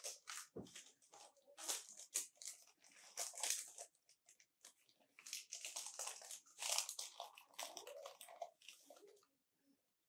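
Baking paper crinkling and rustling in irregular bursts as a rolled-out sheet of pastry dough on it is handled and turned over.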